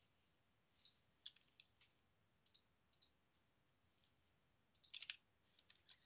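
Near silence broken by scattered faint, short clicks, with a quick cluster of them about five seconds in.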